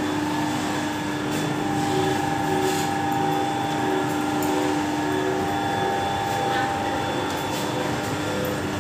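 14-roller automatic noodle-making machine running: a steady mechanical hum from its drive and rollers, with a few faint clicks.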